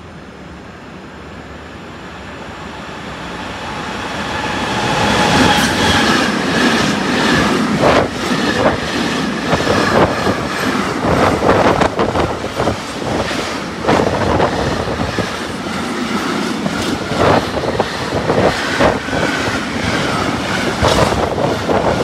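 Electric-hauled freight train approaching and passing close by. It grows louder over the first five seconds, then its wheels clatter steadily over the rail joints in a long run of clacks.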